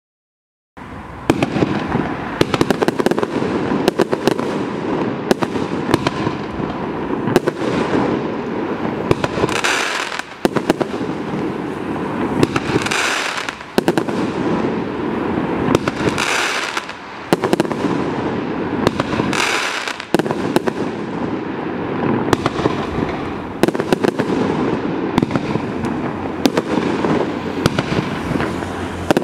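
A 16-shot 50mm mine fireworks cake firing: a run of sharp bangs over continuous dense crackling, starting about a second in.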